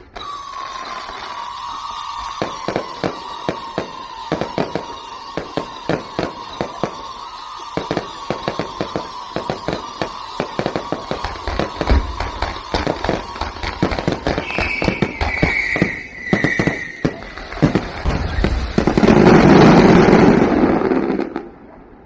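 Aerial fireworks display: shells bursting in rapid, irregular bangs, several a second. A steady whistling tone sinks slowly in pitch through the first dozen seconds, and a higher whistle falls briefly a few seconds later. The loudest part is a dense rush of noise near the end, which stops abruptly.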